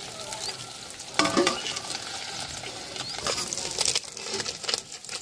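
Small fish frying in hot oil in a kadhai, a steady sizzle, with a steel slotted spoon scraping and clinking against the pan several times as the fried pieces are lifted out.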